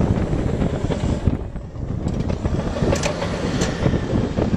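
Strong wind buffeting the microphone, a steady low rumble.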